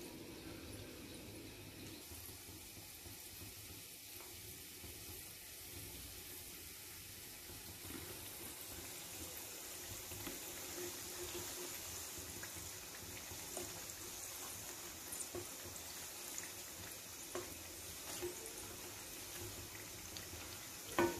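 Samosas deep-frying in hot oil in a kadhai: a faint, steady bubbling hiss that grows a little louder after the first couple of seconds, with a few light knocks from a wooden spatula near the end.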